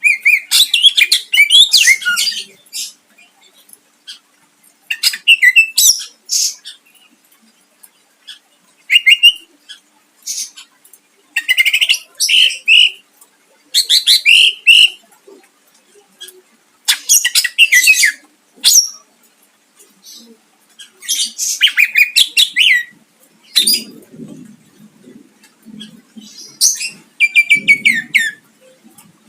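Green leafbird (cucak ijo) singing loud, fast phrases of trills and sharp sweeps, a second or two each with short pauses between, a song packed with mimicry and sharp bursts. A faint low murmur joins near the end.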